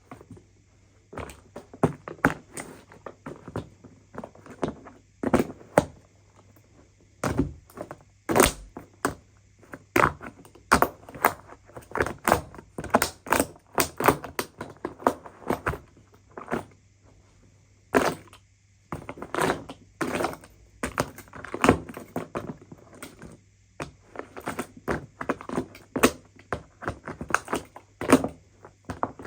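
Irregular knocks, clacks and cracks of a broken coffee machine's hard casing and parts being struck and broken apart. They come in clusters with short pauses between them.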